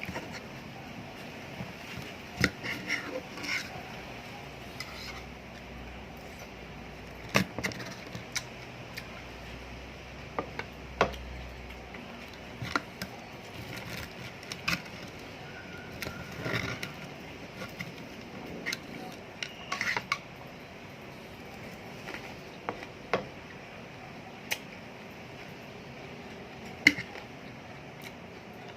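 Someone eating: scattered light clicks and knocks of cutlery and dishes at irregular intervals over a steady low background.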